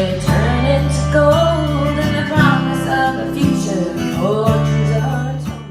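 Band music led by guitar over sustained bass notes, fading out near the end.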